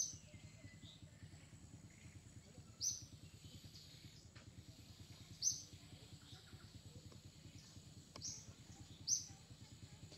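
A bird chirping: single short, high, falling chirps, five in all at intervals of two to three seconds, over a steady low background hum.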